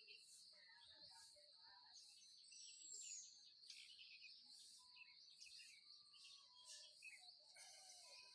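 Faint birdsong: small birds chirping and whistling, over a steady high-pitched whine that pulses about once a second.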